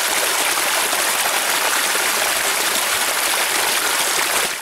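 Shallow stream rushing and splashing over rocks in a small cascade: a steady hiss of water that cuts off abruptly near the end.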